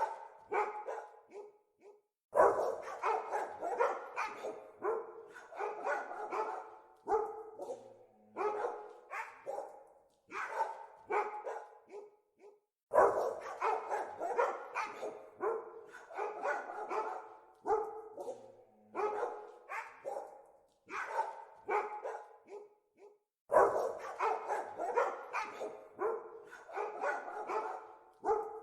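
Dogs barking over and over, several barks a second, with a loud outburst of barking that starts suddenly about every ten seconds, the same stretch recurring each time.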